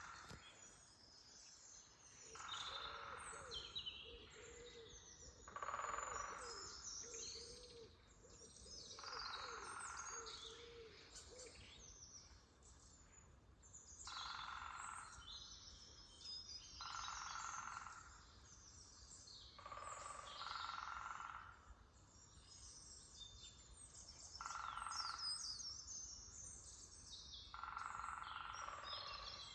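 Early-spring forest birdsong, many small birds chirping and singing, with woodpeckers drumming: a roughly one-second drumroll about every three seconds.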